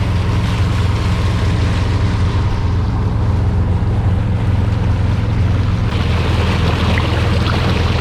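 A motorboat's engine running steadily under way, with a steady rushing noise of wind and water over it.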